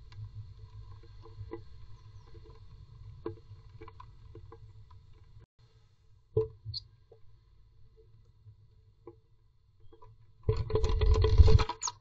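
Blue tit moving about inside a nest box: scattered small taps and scratches over a low rumble, then a single knock. Near the end comes a loud burst of scrabbling against the box, about a second long.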